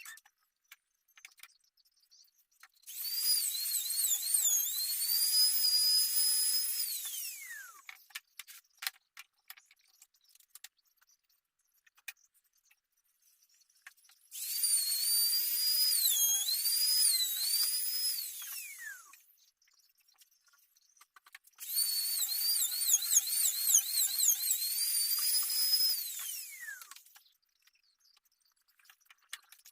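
A small high-speed power tool run three times for about five seconds each, its high whine dipping in pitch as it bites and winding down with a falling whine each time it is switched off.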